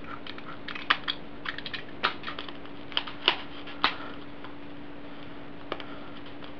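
Utility knife blade cutting along the sealed edge of a cardboard box, giving a run of small irregular clicks and scratches, most of them in the first four seconds, followed by the box being handled. A faint steady hum runs underneath.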